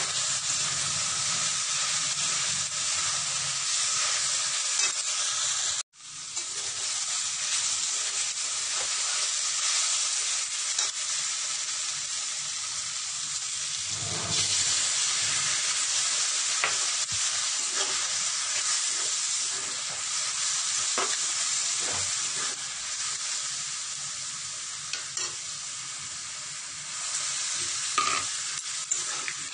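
Cut beans sizzling in oil in an aluminium wok while a spatula stirs them, scraping and knocking against the metal. The sound cuts out for a moment about six seconds in. About halfway through, liquid is poured into the pan and the sizzling grows louder, then settles lower as the beans cook in it.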